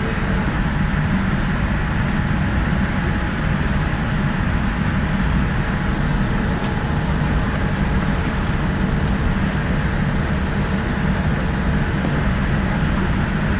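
Steady low rumble and hiss of cabin noise inside a Boeing 787-9 during pushback from the gate, with a faint steady hum underneath.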